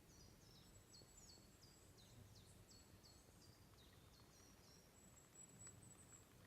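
Faint birdsong: a run of quick, high chirps, roughly three a second, with a thin, high steady note at times, over a low outdoor rumble.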